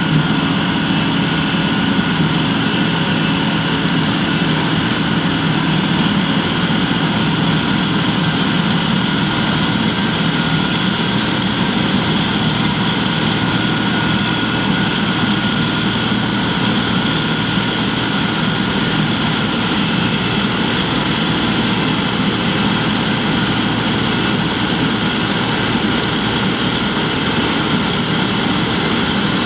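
Heavy harvest machinery running steadily: a diesel engine's constant drone with the mechanical din of the machine's working parts. There is no change in pitch or level.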